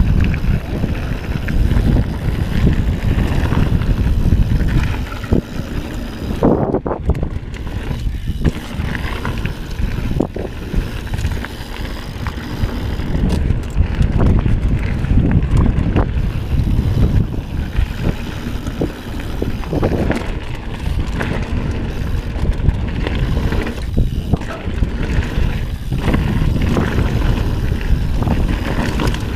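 Wind rumbling on a mountain bike rider's camera microphone while riding downhill, with the tyres rolling over a dirt trail and scattered knocks and rattles from the bike over bumps.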